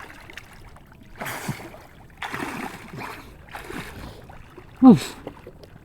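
Water splashing and sloshing in a stream in several short bursts, with one brief falling shout about five seconds in.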